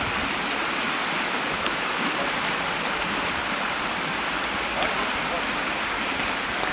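Shallow river rushing over stones, a steady even rush of water.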